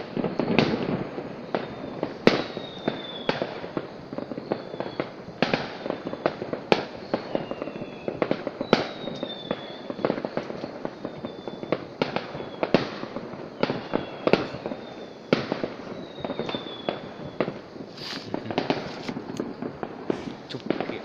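Fireworks going off, a dense, irregular string of bangs and pops, several a second, with a few brief high, slightly falling whistles among them.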